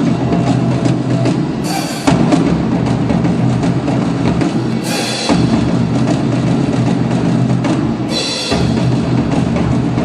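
Up-tempo music with drums and bass and a steady beat, with a bright, crash-like accent about every three seconds.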